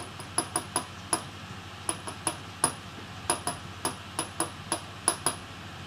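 A run of about eighteen sharp, irregular small clicks and taps with a faint metallic ring, from hand work on a partly disassembled laptop.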